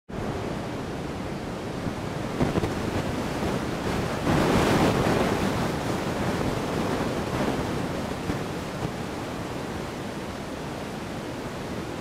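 Wind blowing across the microphone: a steady rush that swells into a stronger gust about four seconds in, then settles back.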